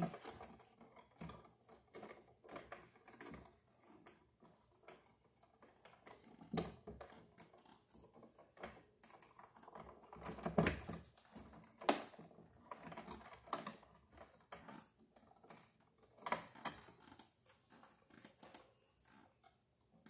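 Irregular small clicks, taps and scrapes of stiff electrical wires being bent and pushed into a plastic wall box, with a few louder knocks about halfway through.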